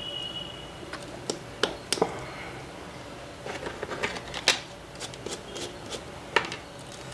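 Irregular sharp clicks and taps of small metal hand tools against a phone circuit board and the workbench while the board is cleaned, about a dozen, the loudest a little past halfway and another near the end. A faint high steady tone stops about a second in.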